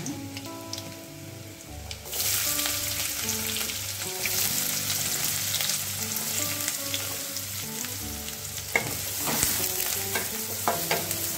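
Hot coconut oil sizzling in an aluminium kadai with mustard seeds and garlic. About two seconds in the sizzle jumps much louder as chopped onion goes into the oil. Near the end a wooden spatula stirs the onions, scraping and knocking against the pan.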